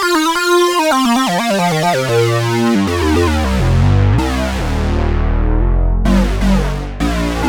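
Sequential Prophet-6 analogue polyphonic synthesizer playing a factory preset. Clear pitched notes come first, then about three seconds in a deeper, fuller sound with strong low notes and chords takes over.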